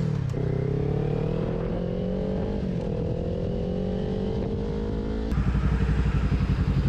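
Kawasaki Ninja 400 parallel-twin with a Two Brothers exhaust, accelerating on the road. Its pitch dips briefly at a gear change at the start, then climbs steadily. About five seconds in the engine tone gives way abruptly to a louder, pulsing sound.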